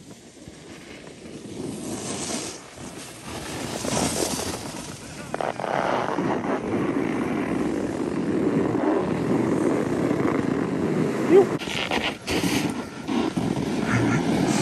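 Snowboard edges scraping and sliding over packed, groomed snow, growing louder over the first few seconds, with a steady low wind rumble on the microphone and sharper scrapes at about two and four seconds in and again near the end.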